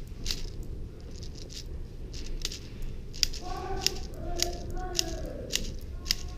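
Airsoft guns firing around the field: sharp, irregular clicking cracks, about two or three a second. A distant voice calls out about halfway through.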